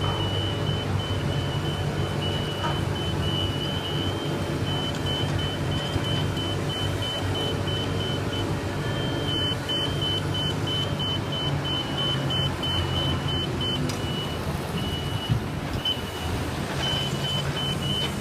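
Heavy construction machine's engine running steadily at a constant pitch, with a thin high whine that cuts in and out and a single light knock near the end.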